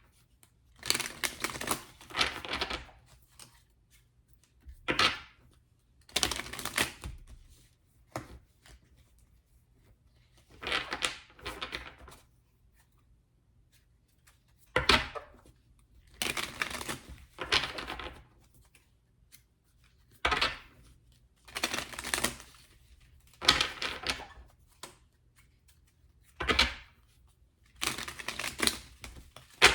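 Tarot cards being shuffled by hand: about a dozen separate bursts of rustling and clattering, each a second or two long, with short pauses between them.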